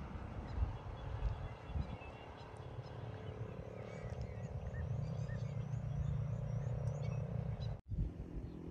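Open-air ambience: a steady low rumble with small birds chirping, including a quick run of about ten high notes in the middle. The sound drops out for an instant near the end.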